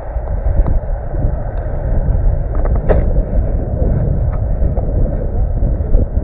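Wind rumbling on a body-worn action camera's microphone while the wearer walks through dry grass, with scattered short clicks and one sharper crack about three seconds in.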